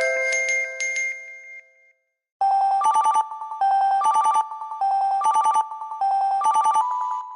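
HTC HD7 ringtones playing. A chiming, mallet-like melody dies away, and after a short gap the next ringtone starts: a steady tone followed by a quick trill, repeated five times a little over a second apart like a phone ring.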